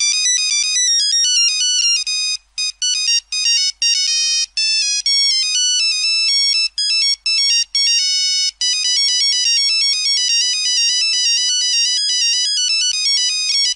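Nokia mobile phone message ringtone: fast runs of short, high-pitched electronic beeping notes jumping from pitch to pitch, broken by several brief pauses.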